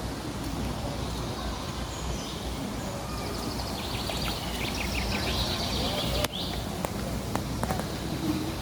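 Outdoor ambience: birds chirping in quick high runs over a steady low rumble, with a sharp click about six seconds in.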